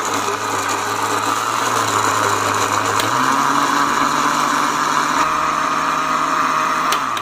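Electric blender (mixer-grinder) running, blending peeled peaches with milk into a smooth purée: a steady motor hum with churning. Its pitch steps up about three seconds in, and it winds down at the end.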